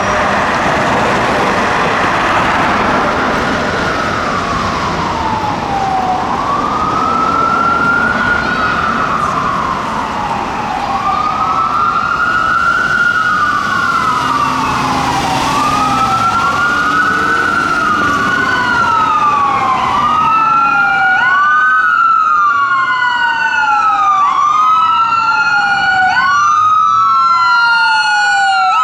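Whelen 295 electronic siren on a responding fire engine, sounding a wailing sweep that rises quickly and falls slowly. The sweeps come about four seconds apart at first and about two seconds apart in the second half, where they grow louder and clearer as the truck approaches.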